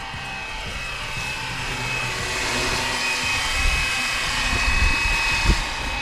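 Flywing BO 105 RC helicopter in flight: its rotor whooshes and its electric motor gives a steady high whine. It grows louder over the first few seconds as it comes closer. Low rumbles of wind on the microphone come in the second half.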